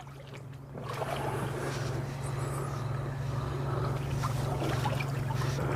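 Steady low hum under wind and water noise out on the lake; the rushing noise swells about a second in and then holds steady.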